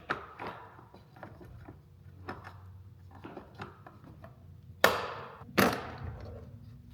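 Scattered small clicks and knocks of plastic interior-light housings and trim being handled and fitted in a car, with two sharper knocks about five seconds in.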